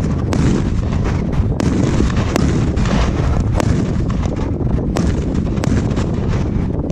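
A 100-shot 1.3G compound firework cake firing a rapid volley: low bangs running together into a continuous rumble, with sharp cracks scattered throughout.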